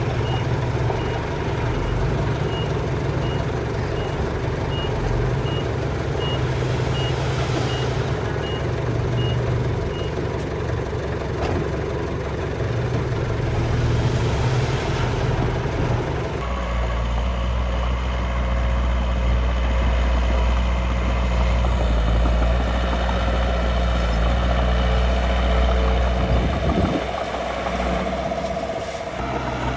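Engine of miniature construction machinery running, with a reversing beeper sounding about one and a half times a second for the first third. About halfway through, the engine note drops deeper and grows louder, then eases off near the end.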